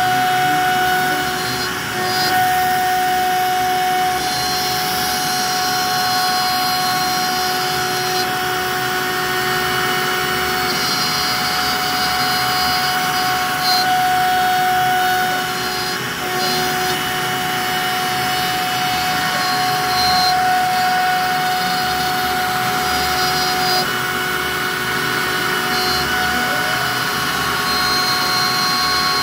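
A CNC router's wood-router spindle runs steadily with a high whine while its bit mills a relief carving into a wooden panel. The cutting noise dips briefly a few times as the tool moves.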